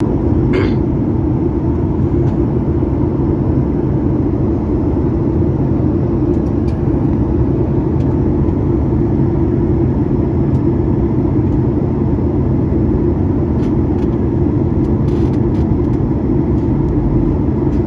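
Steady cabin noise of a Boeing 737 MAX 8 in flight: an even, deep rumble of CFM LEAP-1B engine and airflow heard from a window seat over the wing.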